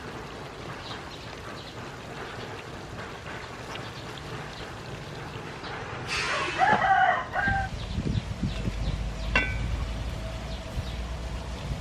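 A rooster crows once in the background, a single pitched call of over a second starting about six seconds in. A brief metallic clink follows about three seconds later as the aluminium pot lid is lifted.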